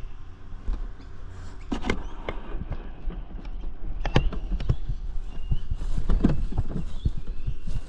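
Shovel blade chopping down into soil and scraping on gravel in several irregular strokes, cutting a garden-bed edge.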